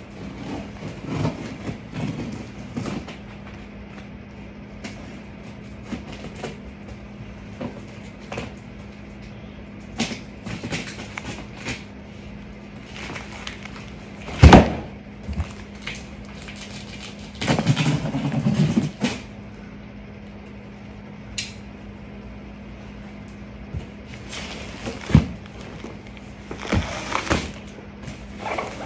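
Large cardboard shipping boxes being handled, tipped over and set down on a tiled floor and rug: scattered knocks and cardboard scrapes, with the loudest thump about halfway through, a couple of seconds of sliding and scraping right after it, and another sharp knock near the end. A steady low hum runs underneath.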